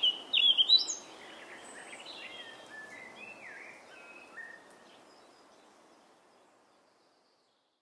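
Forest ambience of birds chirping and calling over a soft background hiss. Loud chirps in the first second, then fainter calls that fade out to silence near the end.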